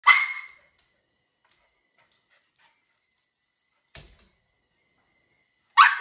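Miniature schnauzer barking high-pitched, once right at the start and again just before the end, with a faint short thud about four seconds in.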